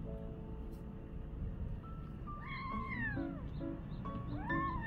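A cat meowing twice, each call rising and then falling in pitch: the first a little before halfway, the second near the end. Soft background music plays underneath.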